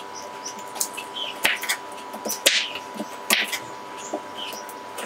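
Kitchen knife slicing peeled hog plums on a plastic cutting board, with a few sharp knocks as the blade meets the board. Birds chirp in short notes in the background, over a faint steady whine.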